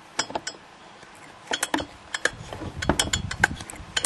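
Irregular light clicks and clinks from handling the blower's hard plastic and metal parts, coming thicker after the first second and with a brief low rumble in the middle.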